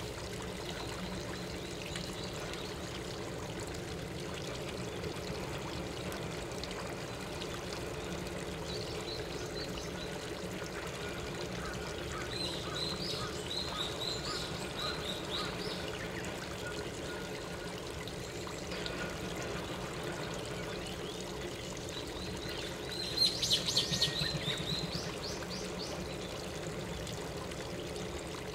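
Steady running water, with high bird calls in the middle and a louder, rapid trilling bird call near the end.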